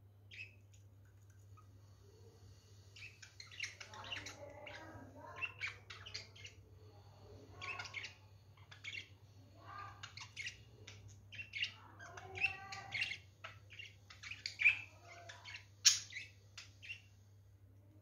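Pet budgies chirping and chattering in quick, high, short calls, starting about three seconds in and continuing almost to the end, with one sharp loud chirp near the end. A steady low hum runs underneath.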